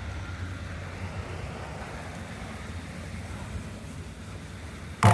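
Steady low rumble of background noise, with one sharp knock near the end.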